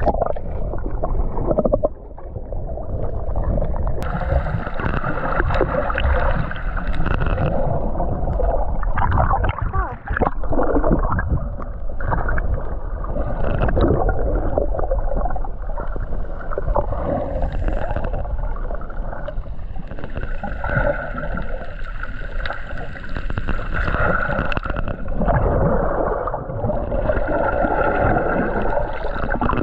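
Muffled rushing and gurgling of water around a submerged camera while snorkeling, rising and falling unevenly with the swimmer's movement.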